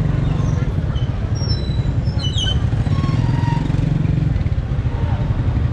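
A steady low engine rumble with a fast, even pulse, with a few short faint squeaks and clinks over it.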